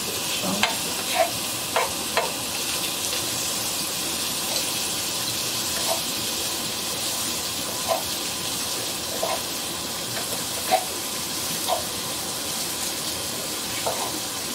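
Italian sausage meat sizzling as it fries in a pan, with short clicks and taps now and then as a utensil breaks the meat up against the pan.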